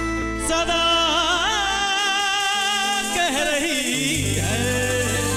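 Live band music: sustained keyboard chords under a wavering, gliding melody line, likely with the singer coming in. The low bass notes drop out about two seconds in and return about four seconds in.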